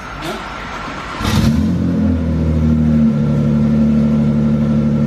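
Nissan GT-R R35's twin-turbo V6 starting about a second in and then running at a steady idle with its exhaust system removed. The engine note shifts slightly about three seconds in.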